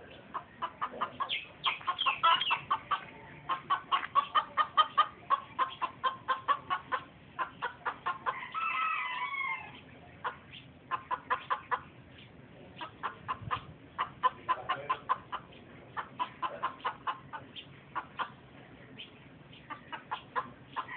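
Rooster clucking in quick, steady runs of short calls, about three or four a second, with one short crow about eight or nine seconds in.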